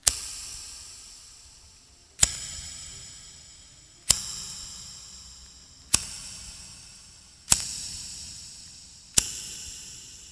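Zippo lighter's metal case clicking six times, about every one and a half to two seconds, each a sharp clink that rings out in high metallic tones.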